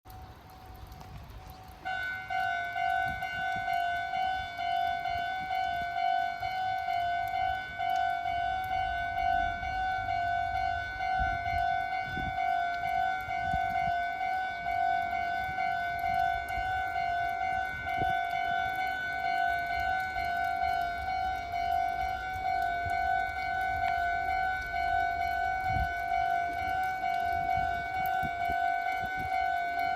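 Japanese railway level crossing warning alarm ringing: a steady, rapidly repeating electronic ding. It is quieter at first and becomes loud about two seconds in.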